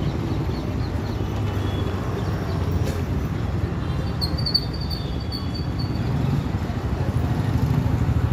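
A vehicle engine running steadily with a low rumble, with a thin high-pitched tone for a couple of seconds about four seconds in.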